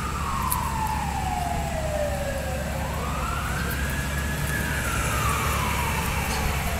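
Emergency vehicle siren in a slow wail: the pitch climbs quickly, holds briefly at the top and sinks slowly, about one cycle every five seconds. A steady low rumble runs beneath it.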